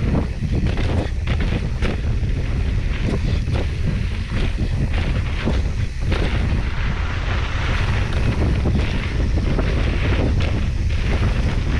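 Wind buffeting the microphone of a mountain bike moving at speed on a trail, with frequent sharp clatters and knocks as the bike rattles over rough ground.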